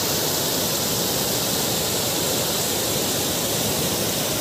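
Muddy floodwater rushing and churning in rapids down a newly cut channel through beach sand: a steady, even rush of water.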